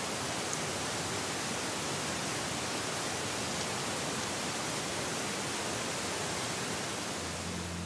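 Steady, even hiss from a Toguard H85 trail camera's built-in microphone recording a quiet night garden, with no distinct animal sound. Low music notes come in near the end.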